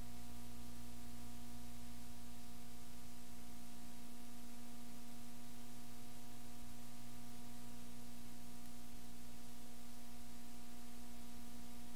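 Steady electrical hum with a layer of hiss. It never changes, with no other sound on top.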